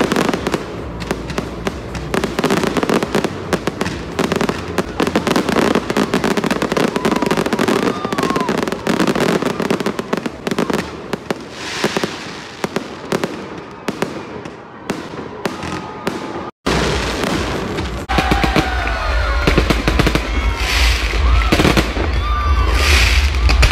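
Fireworks going off: a dense, rapid crackling and popping of bursting shells. After a short dropout about two-thirds of the way through, the display continues with a heavier low rumble under the crackle.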